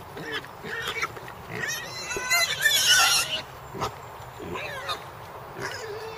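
Wild boar grunting as they root, with one loud, high squeal lasting about a second, a little over two seconds in.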